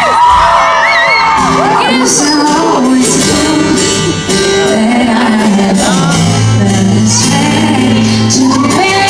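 A live pop band and a female lead singer performing a song in a large hall, with fans in the crowd shouting and whooping.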